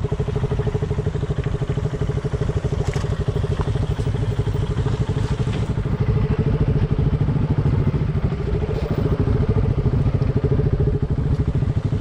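Motorcycle engine running steadily with a rapid, even exhaust pulse. A few sharp clicks and knocks sound over it, about three seconds in and again a little later.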